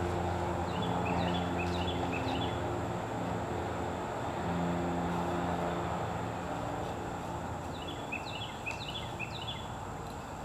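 A steady low drone with a bird chirping over it in two short runs, one about a second in and one near the end.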